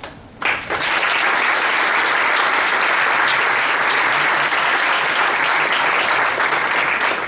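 Audience applauding, the clapping starting abruptly about half a second in and holding steady.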